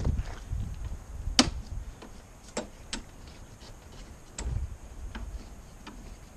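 Scattered sharp clicks and knocks, about six spread over several seconds, the loudest about a second and a half in, over a low rumble that fades out early and briefly swells again past the middle.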